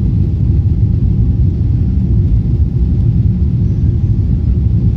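Cabin noise in a Boeing 777-300 climbing out just after takeoff: a loud, steady low rumble of the jet engines and rushing air, with a faint steady hum above it.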